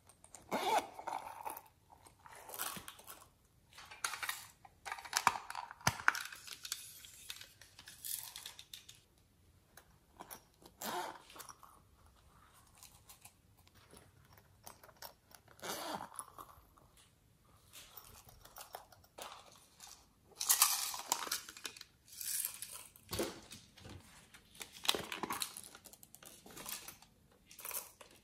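Small plastic cases, squishy toys and a pouch handled close to the microphone: irregular bursts of crinkling, crunching and clicking as they are turned over, opened and squeezed, with quiet gaps between.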